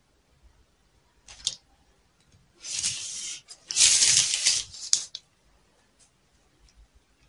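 Felt-tip marker scratching across pattern paper as a line is drawn along a ruler: a short scratch about a second and a half in, then two longer strokes around three and four seconds in, the second the loudest.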